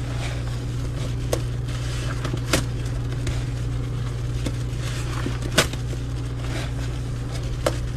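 A soapy sponge squeezed and worked by hand in thick dish-soap and baking-soda foam: wet squishing and crackling lather, with a few sharp clicks, over a steady low hum.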